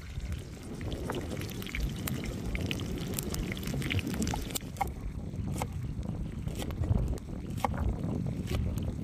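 Beef steaks and melting butter sizzling and popping in a shallow pan over a wood fire, with many small crackles over a steady low rumble. About halfway through, the high hiss drops away, leaving separate sharp clicks.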